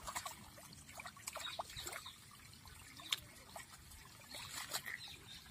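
Shallow water trickling faintly in a flooded rice paddy, with scattered small splashes and ticks.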